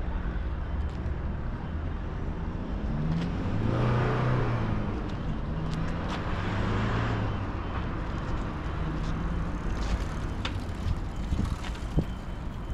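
Street traffic with motor vehicles driving past. An engine swells to its loudest about four seconds in, and a second pass follows around seven seconds. A few short sharp clicks come near the end.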